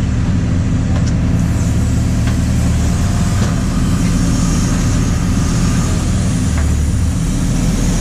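JCB 4CX backhoe loader's diesel engine running steadily under load while the backhoe arm swings a bucket of soil over to the truck and back, heard from the operator's seat, with a few faint clicks.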